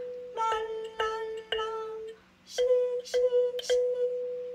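Kalimba with a wooden body and steel tines, plucked with the thumbs. Four ringing notes (ti-la-sol-la) come first, then a short pause, then three plucks of the same note (ti-ti-ti), each left to ring.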